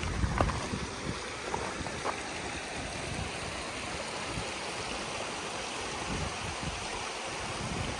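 Steady rushing wind, with gusts rumbling on the microphone, and a few footsteps on the trail in the first couple of seconds.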